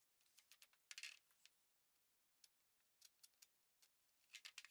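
Faint, crisp scraping of a hand router plane's cutter shaving wood, in short strokes with a brief pause about two seconds in.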